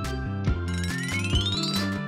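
Cartoon background music with a repeating bass line. In the second half, a high tone glides steadily upward.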